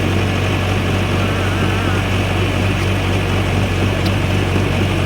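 Backhoe's diesel engine running steadily with a constant low drone.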